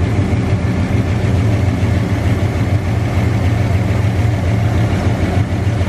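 Ford pickup truck's engine idling steadily, a loud, even low rumble with no revving.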